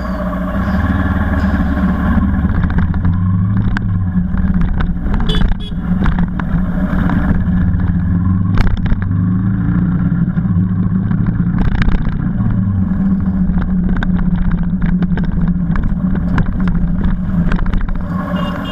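A Suzuki Gixxer SF 150's single-cylinder engine running as the motorcycle is ridden, its revs rising and dropping several times, with road and wind noise.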